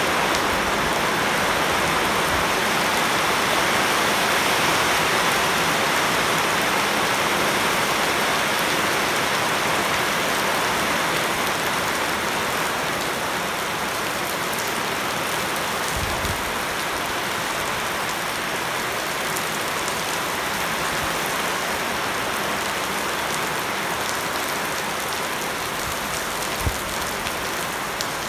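Heavy rain pouring onto leafy shrubs and a flooded paved yard: a steady hiss of drops splashing into standing water. Two brief low knocks come about halfway through and near the end.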